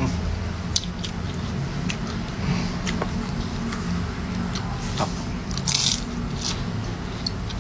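Close-up mukbang eating sounds: bites and crunches of food being chewed, in scattered clicks with the loudest crunch about six seconds in.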